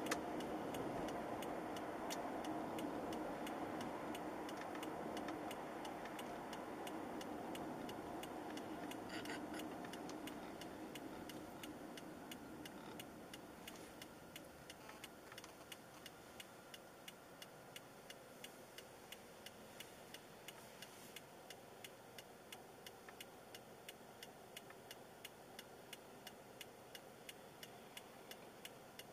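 Road and engine noise inside a car fading as it slows to a stop, then a turn-signal indicator ticking steadily at an even pace.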